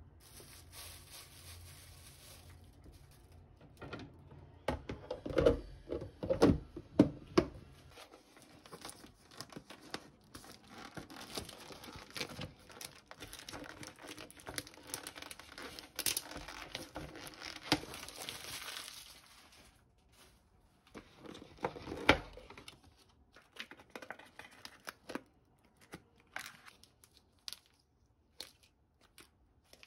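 Thin plastic shrink-wrap crinkling and tearing as it is peeled off an instant-noodle cup, with plastic sauce sachets rustling. A few dull knocks come early on and one more in the middle, the loudest sounds here.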